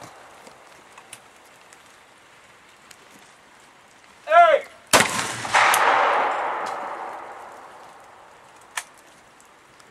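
A shooter's short shouted call for the clay target, then about half a second later two shotgun shots about half a second apart, their echo ringing out and dying away over about three seconds. A single sharp click comes near the end.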